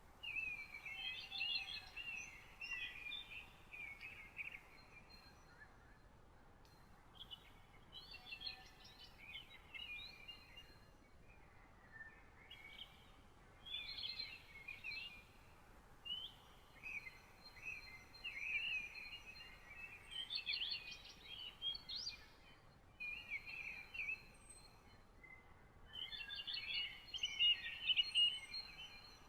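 Songbirds singing in a morning chorus: one bird repeats rapid twittering phrases of a second or three each, with short pauses between them, while fainter thin high notes come from other birds, over a soft background hiss.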